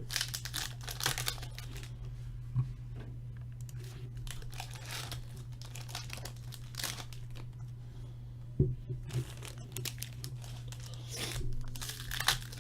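Packaging of a hockey card box being torn open and crumpled: irregular rustling and tearing of wrapper and packs, over a steady low hum.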